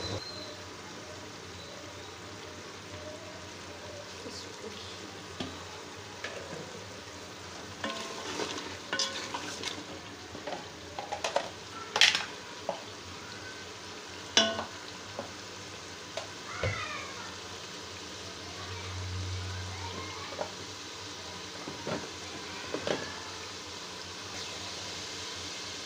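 Beef frying in masala in an aluminium pot, sizzling steadily while a wooden spatula stirs it and now and then scrapes and knocks against the pot. This is the bhuna stage, browning the meat for beef karahi. The scraping comes mostly between about eight and fifteen seconds in, and again a few times near the end.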